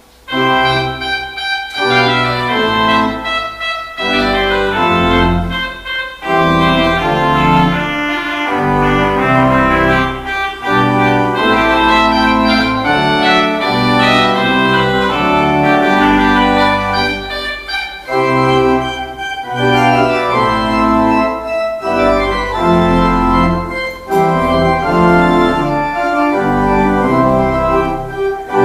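Church organ playing the postlude, the closing music of the service: sustained chords over deep bass notes, starting suddenly.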